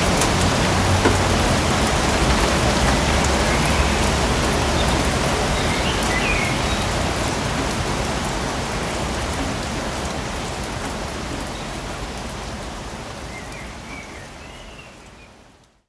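Steady rain falling in a suburban forest, with a few short high chirps heard over the rain. The rain fades out gradually over the second half and stops just before the end.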